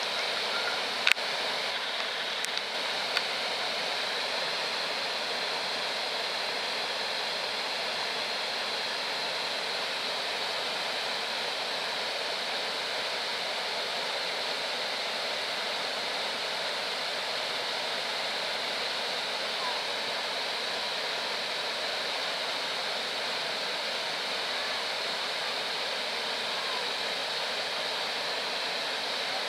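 Steady rush of flowing water, like a small waterfall or fast stream, with a few sharp clicks in the first three seconds.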